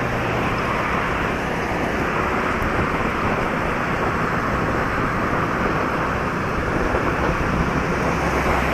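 Honda Pridor 100cc motorcycle on the move at a steady speed: its single-cylinder four-stroke engine running under a steady rush of wind and road noise, with traffic around.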